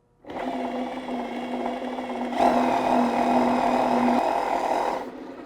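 Electric drill running the Bluedog BWS-38-MF-DA wire stripping machine as a copper wire is pulled through its blades, a steady motor whir that gets louder a little over two seconds in and stops about five seconds in.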